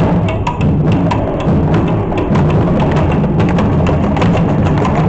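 Loud salsa music heavy with percussion: sharp, quick wood-block-like clicks over a steady, heavy bass.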